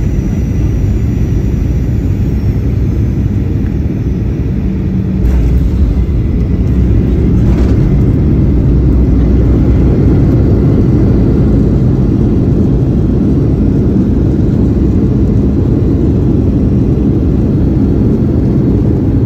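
Inside the cabin of a Boeing 737 airliner landing, a steady low rumble of the engines and airflow. About five seconds in, a thump of the wheels touching down. The rumble then grows louder through the landing roll and eases only slightly toward the end.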